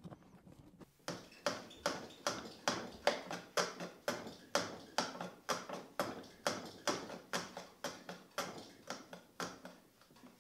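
Low angle jack plane run on its side along a shooting board in quick repeated strokes, about two a second, its blade shaving the end of the board's fence flush with the plane.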